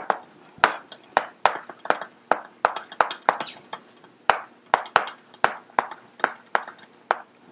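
Chalk writing on a blackboard: a quick, irregular run of sharp taps and short scrapes, about three a second.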